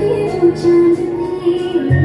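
Recorded song playing for a dance: a female voice sings long held notes over a steady bass, and the bass comes in fuller near the end.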